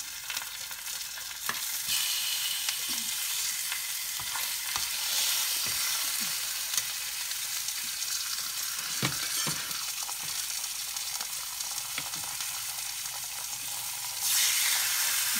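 Pink salmon fillets frying in hot oil in a pan: a continuous sizzle that steps up louder about two seconds in and again near the end as fish is laid into the oil. A few light clicks of the knife and spatula against the plate and pan.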